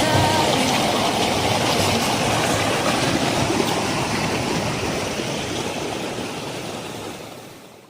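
Waterfall and rushing water as a steady, even noise, fading out near the end.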